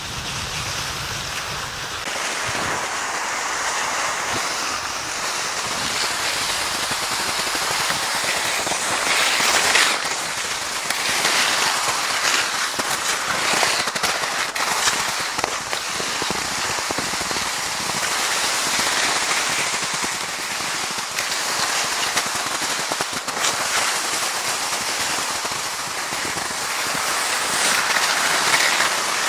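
Skis gliding fast over crusted snow: a steady crackling hiss packed with small crunches.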